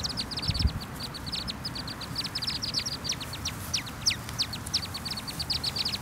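A group of ducklings peeping continuously: many short, high peeps, each sliding downward, several a second and overlapping, over a low rumble.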